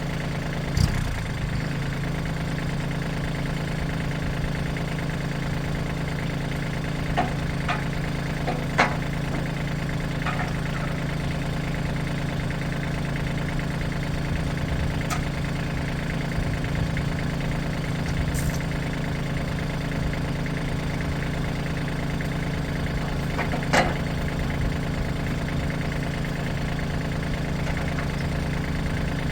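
An engine idling steadily at an unchanging pitch, with a few short sharp knocks or clanks over it, twice close together about 7 to 9 seconds in and once more near the end.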